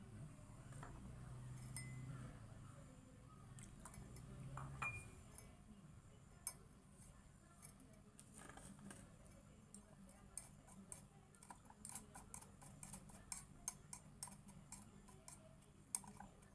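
Faint clinking and tapping of kitchen utensils against glass while pounded saga-leaf mash is strained. The small clicks come in a quick run through the second half.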